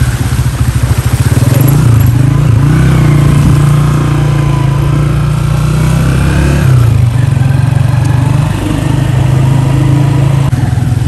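Motorcycle engine running steadily, its pitch wavering for a few seconds in the middle.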